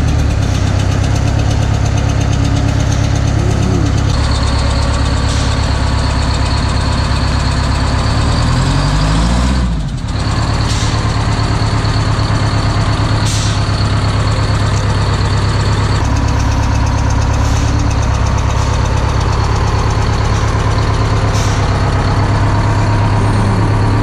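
Detroit Diesel 8V71 two-stroke V8 of a 1981 Silver Eagle bus idling with a misfire on the left bank. The exhaust gives a regular pffft, like a puff of compressed air rather than a metallic or mechanical noise, which the owner takes for one injector not firing, with no fuel on one cylinder.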